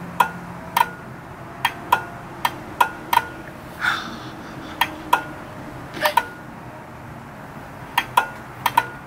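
Sharp clicks, about fifteen and often in quick pairs, some with a brief ringing tone, from the headlight switch and relays being switched on and off to test the newly rewired low and high beams on a 2002 Mitsubishi Lancer.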